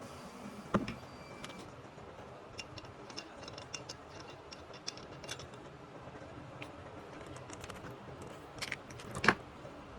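Steam iron parts being handled during disassembly: scattered light clicks and taps, with a sharper knock about a second in and a louder one near the end.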